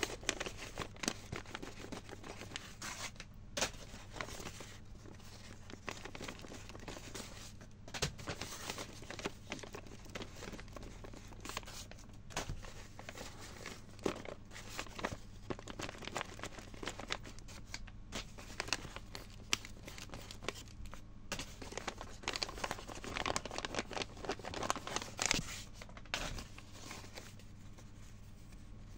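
Paper crinkling and tearing as handmade paper blind bags are unwrapped by hand: a steady run of small crackles and rips, busiest a little before the end.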